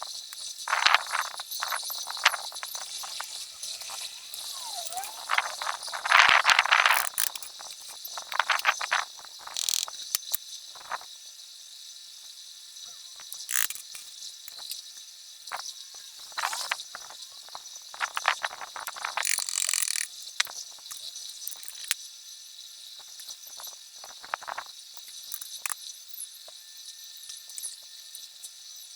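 Irregular scraping and rubbing strokes as the rotor's commutator on a brushed electric motor is cleaned by hand, heaviest in the first ten seconds and again about two-thirds of the way through. Behind them is a steady high-pitched chorus of insects.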